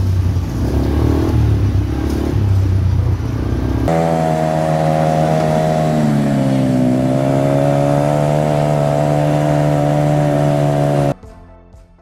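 ATV (quad bike) engine running while being ridden. It is rough at first, then becomes a steady drone about four seconds in and dips briefly in pitch partway through. The sound cuts off abruptly near the end.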